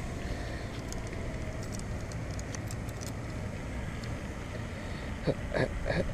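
Wind rumbling steadily on the microphone, with a few faint ticks and, near the end, a few short higher-pitched sounds.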